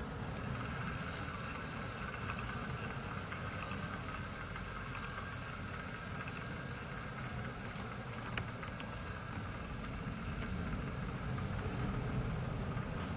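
Diesel shunter engine running steadily at low revs, a Class 08-type shunting locomotive ticking over as it moves off. A single sharp click about eight seconds in.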